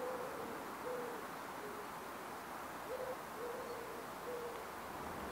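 A dove cooing: a series of short, soft, low coos, some in quick pairs, over a faint steady hiss.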